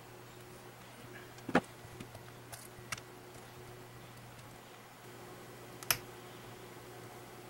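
A few sharp plastic clicks and taps from hands handling a laptop's LCD panel as it is worked loose from the lid. The loudest click comes about a second and a half in, two lighter ones follow about a second later, and another strong one comes near the end, over a faint steady hum.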